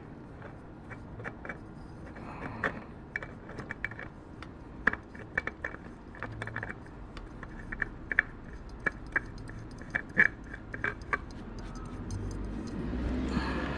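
Scattered light clicks, taps and scrapes of a new spin-on oil filter being handled and fitted onto a motorcycle engine's filter mount, metal and plastic knocking together. A low steady rumble comes up near the end.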